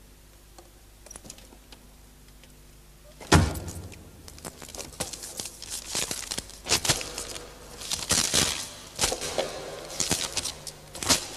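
A single loud thump about three seconds in, then the pages of a large book being turned and rustled, a dense run of papery clicks and rustles.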